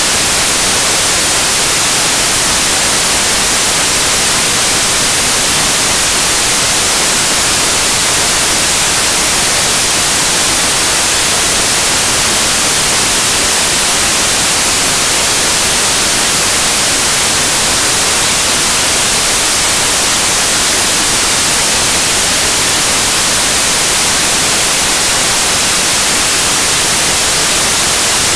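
Loud, steady static hiss like white noise, unchanging throughout, with no sound of the fight or the crowd in it.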